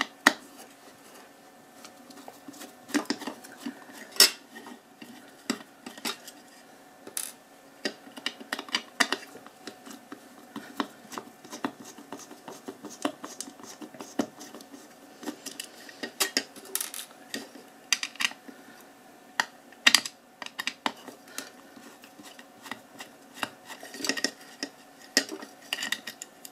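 Small screwdriver driving tiny screws to fasten an LED chip into a metal floodlight housing, with the housing handled on the bench: irregular metallic clicks, clinks and scrapes.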